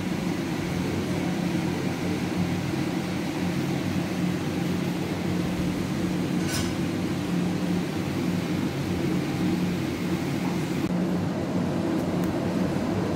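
A household appliance running with a steady low hum and hiss, and one short high tick about six and a half seconds in.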